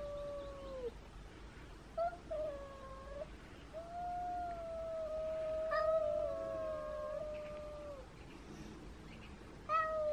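Cat yowling in a face-off with another cat: long, drawn-out, slightly wavering yowls, three or four in a row with short gaps, the longest lasting about four seconds. This is the low warning yowl of a cat confronting a rival.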